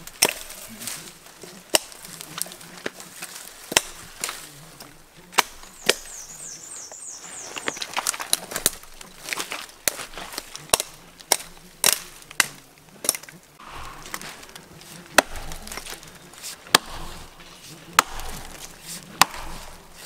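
Hatchet chopping branches off a downed tree: about fifteen sharp wooden chops at irregular spacing, coming quicker for a few strokes around the middle.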